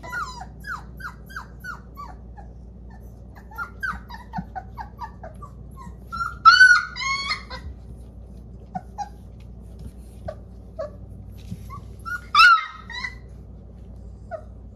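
Four-week-old puppies whimpering: a run of short, high, falling whines, with two louder yelping cries about six and a half and twelve and a half seconds in.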